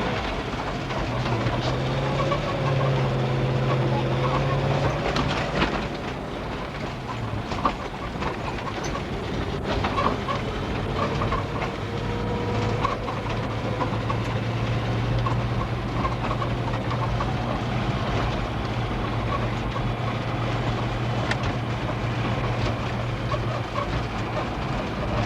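Car engine and tyre noise heard from inside the cabin while driving: a steady low hum that shifts in pitch over the first few seconds, then holds even, with a few faint clicks.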